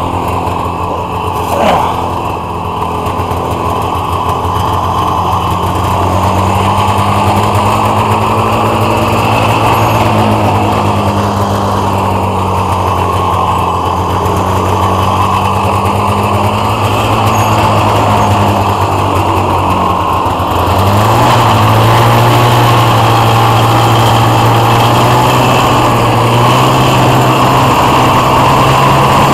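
Polaris Indy 440 snowmobile's two-stroke engine running at low, wavering revs as the sled moves off slowly. About 20 seconds in, the engine note steps up and it runs steadily higher and louder as the sled picks up speed.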